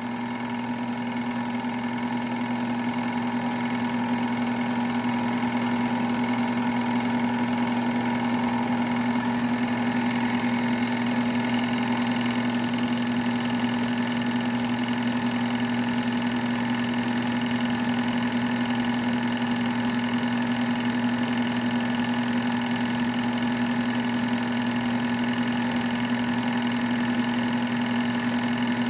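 Sears 'Tower' film projector running as film plays through it: a steady motor hum and whir that holds even throughout.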